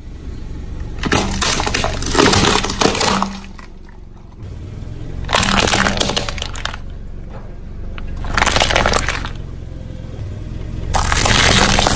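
Car tyre rolling over brittle objects and crushing them: four bursts of crackling and breaking, a few seconds apart, over a steady low rumble.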